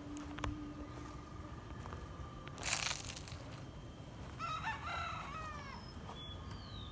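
A rooster crowing once, a little over a second long, starting about two thirds of the way in. A short, loud rustle comes before it, and a few thin bird chirps follow near the end.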